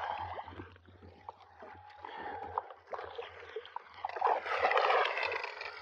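Lake water lapping and splashing, with scattered small clicks and a louder stretch of splashing about four seconds in.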